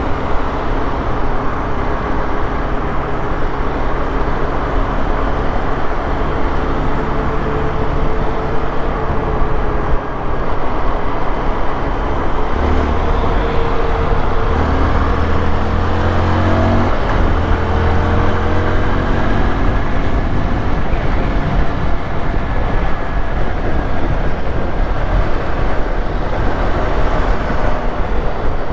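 Honda XRE 190's single-cylinder engine running on the move over a steady rush of wind and road noise, its pitch rising under acceleration, dropping sharply at a gear change a little past halfway, then rising again.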